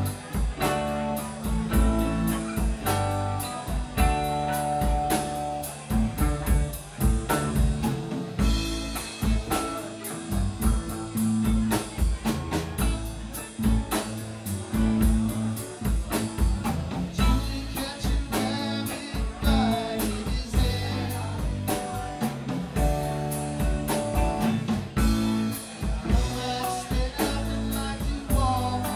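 Live rock band playing: electric guitars, drum kit and keyboard together, with a steady beat.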